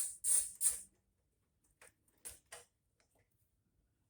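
A few short rasping bursts, then three faint clicks about a second later: hand tools working loose the screws of the engine's top cover.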